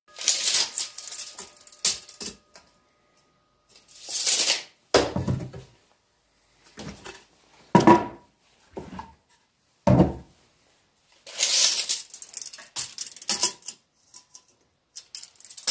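Chop saw cutting oak boards to length in short bursts of about a second each, mixed with duller knocks and clatter of the wood being handled.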